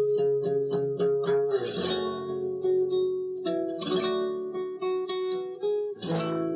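Guitar music. A run of quickly picked single notes, about four a second, gives way to strummed chords about two seconds apart.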